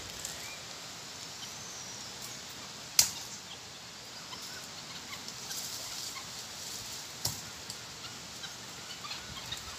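Two sharp knocks about four seconds apart, the first much louder: a capuchin monkey striking a palm nut to crack it open. Faint bird chirps sound behind.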